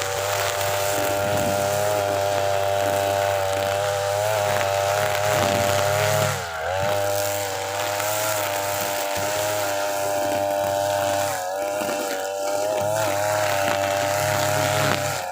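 TB43 two-stroke brush cutter with a trimmer head running at full throttle through thick grass. Its pitch sags briefly about six and a half seconds in, then recovers, as the line takes the load.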